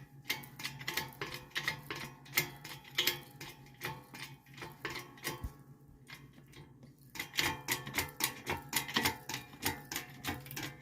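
Manual pipe bender being worked to bend solid 5/8 in round steel rod: rapid, uneven clicking and ticking of the mechanism, several clicks a second, pausing briefly about six seconds in and then resuming, over a steady low hum.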